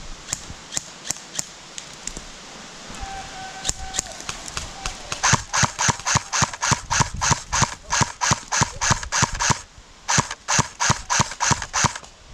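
Airsoft gun firing: a few scattered single shots, then a rapid string of shots at about five a second for some four seconds, a short pause, and another run of about eight shots.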